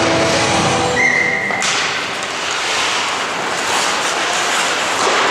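Arena sound-system music stops about one and a half seconds in. After that comes a steady, loud hiss of ice hockey play in a large rink, with a few thuds.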